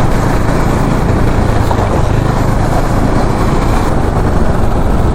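Motorcycle running at a steady cruise, with an even rush of road noise.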